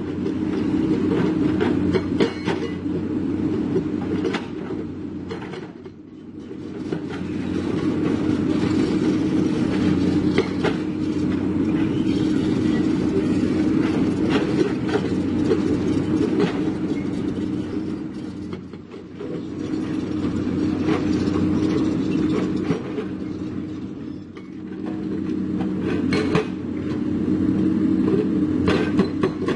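Crawler excavator at work: its diesel engine runs with a steady hum, overlaid by irregular metallic clanks and creaks from the steel tracks and working parts. The level drops briefly three times.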